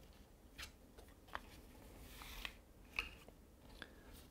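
Faint rustling of a sheet of 90 g paper being folded and smoothed by hand, with a handful of brief crinkles as the paper shifts and creases.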